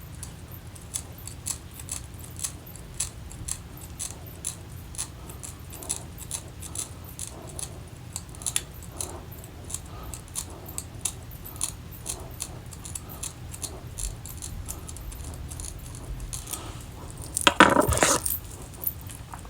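Small metal tweezers clicking shut again and again, about two to three times a second, while plucking the hairline of a lace wig, over a steady low hum. One louder, brief clatter comes near the end.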